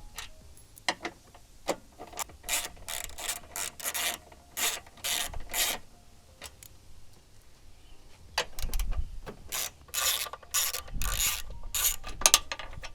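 Hand ratchet with a 10 mm socket clicking in quick runs of short strokes as bolts are backed out. There is a lull in the middle, then a faster, denser run near the end.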